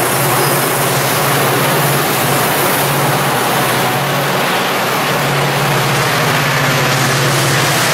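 Metrolink bilevel passenger train rolling past close by, with the steady drone of a diesel locomotive engine under the rumble of the cars.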